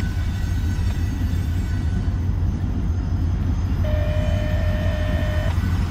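Diesel freight locomotives approaching, with a steady low rumble. About four seconds in, a single steady horn note sounds for under two seconds.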